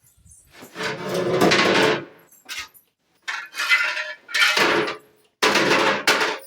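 Kitchenware and containers clattering and scraping as they are handled while the fridge is emptied, in four bursts of a second or so each.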